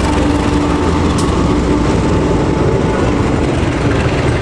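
Passenger train's coaches rolling past close by: a loud, steady rumble of steel wheels on the rails, with one sharp click about a second in.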